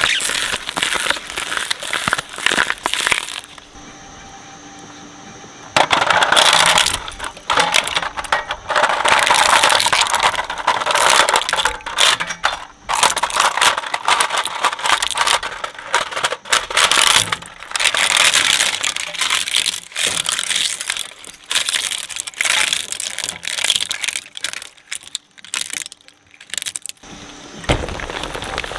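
A shredder's blades crunching and cracking an object to pieces: dense, sharp cracks and crunches. A few seconds in there is a short lull where only the machine running is heard.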